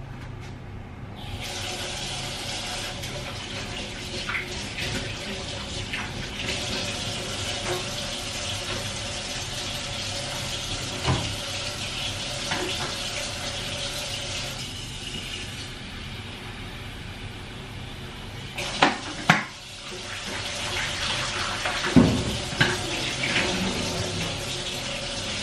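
Kitchen tap running into a steel sink as a white plastic kettle is rinsed under it. The water eases off around the middle, then a few sharp knocks of the kettle against the sink come near the end as the water runs again.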